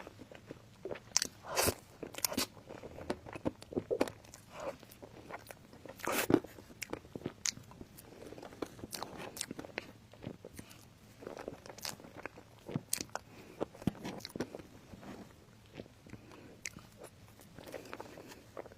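Close-miked eating: a person biting into crunchy food and chewing it, with irregular crisp crunches throughout. The loudest bites come about one and a half seconds and about six seconds in.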